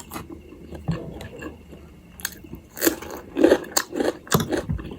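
Close-miked eating sounds: a person chewing food with mouth clicks and smacks, quieter at first and louder with several distinct bites and smacks in the second half.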